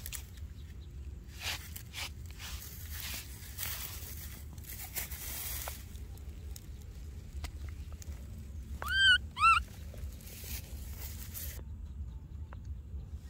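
Baby macaque giving two short high-pitched calls about nine seconds in, half a second apart, each rising then falling in pitch. Scattered rustles and scuffs on dry ground and grass come before them.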